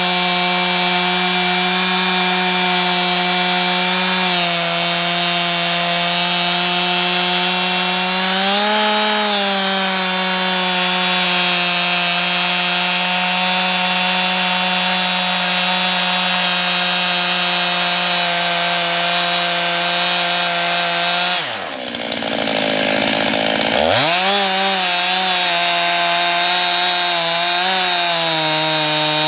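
Chainsaw engine held at full throttle under load while ripping a log lengthwise in a chainsaw mill, the chain sawing through the wood. About 22 seconds in the revs drop sharply and climb back.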